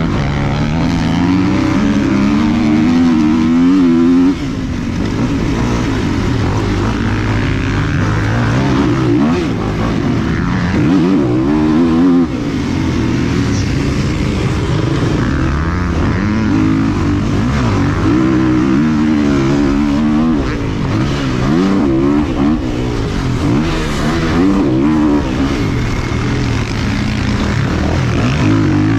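Several motocross dirt bike engines revving up and down as they run around a track, their pitch rising and falling with the throttle and overlapping one another.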